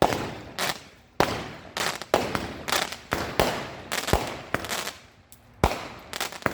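A small consumer firework cake firing a rapid series of shots: sharp bangs about twice a second, each with a short fading tail, and a brief lull shortly before the end.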